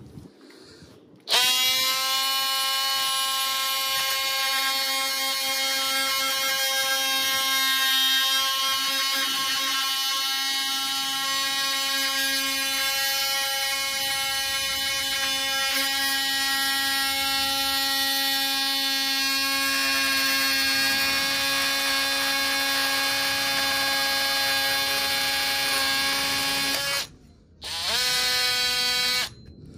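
DeWalt oscillating multi-tool running at a steady speed as its blade cuts through a strip of uPVC plastic trim. It spins up about a second in, runs unbroken, stops a few seconds before the end, then runs again briefly.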